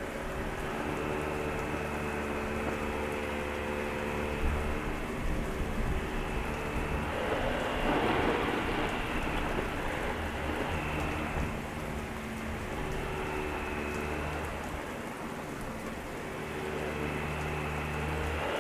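Heavy rain falling steadily, with a swell of thunder about eight seconds in. Underneath, a vacuum cleaner's motor hum fades in and out.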